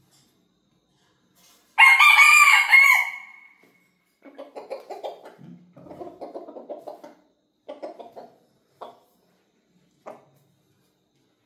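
A rooster crows once, loud and brief, about two seconds in. It is followed by a few seconds of low, choppy clucking and two short clucks near the end.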